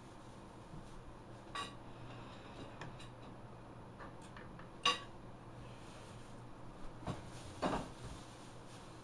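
Light metallic clinks from the metal claws and scissors being handled on a fleece fursuit foot: two short ringing clicks about three seconds apart, the second louder, then a duller knock near the end.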